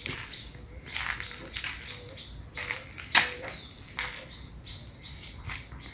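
Outdoor rural ambience with faint bird chirps, broken by irregular sharp clicks and taps, the loudest about three seconds in.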